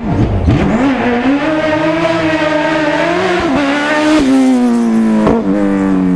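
Race car engine at high revs, its pitch climbing early on and then holding high, with a sudden drop in pitch about four seconds in and a short sharp crack just after five seconds.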